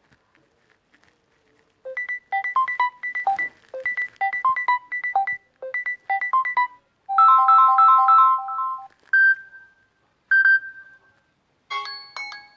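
Samsung Galaxy A20 ringtone melodies. After a quiet first two seconds, a quick tune of short, bright, repeated notes plays, followed by a few held chords and two single notes. Near the end another ringtone begins.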